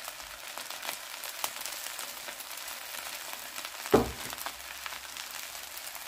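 Fried rice sizzling and crackling in hot oil in a wok as frozen diced carrots and peas go in. There is a single sharp knock about four seconds in, the loudest sound.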